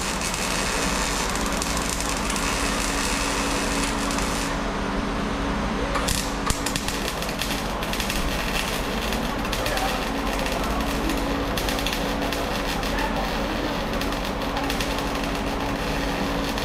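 Wire-feed welder's arc crackling steadily while welding a sheet-metal rocker panel, with a short break about four and a half seconds in before the arc strikes again.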